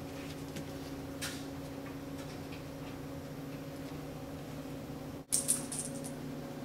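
Faint light taps and scuffs from a cat batting a small ball and a flip-flop about on a woven doormat, over a steady low hum. A brief, louder scrape about five seconds in.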